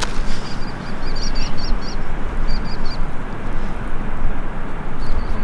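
Wind buffeting the microphone, a steady rushing noise with gusty low rumble. A small bird calls in short runs of high chirps, several times.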